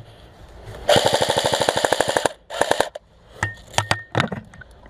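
Airsoft gun firing a rapid full-auto burst of about a second and a half, about a second in, followed by a few scattered single shots.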